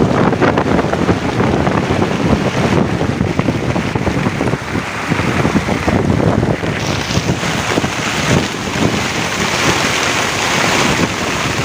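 Strong wind buffeting the microphone over rough, splashing water, with a harsher hiss over the second half.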